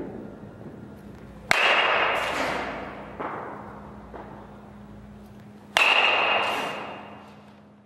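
Two hard cracks of a baseball bat driving a pitched ball, about four seconds apart, each with a ringing tail that dies away over about two seconds in a reverberant indoor cage. Softer knocks fall between them.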